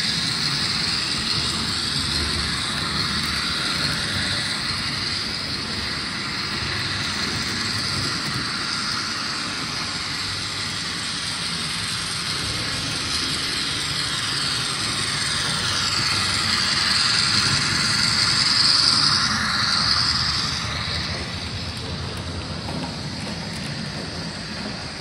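N-scale model trains running on the layout track: a steady high-pitched whirr of small locomotive motors and wheels rolling on the rails. It grows louder about sixteen to twenty seconds in, then falls away.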